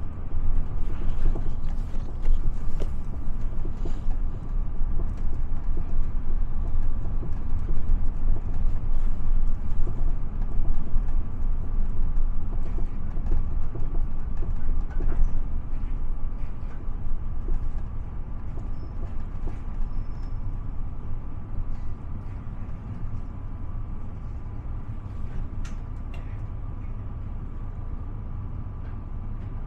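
Inside a city bus in motion: a steady low rumble of the drivetrain and road noise, with a faint steady high tone. It grows quieter over the second half as the bus slows.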